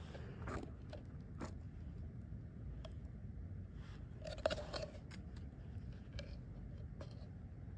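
Handling noise: a low steady rumble with scattered small clicks and scrapes, the loudest a short rustling scrape about four and a half seconds in.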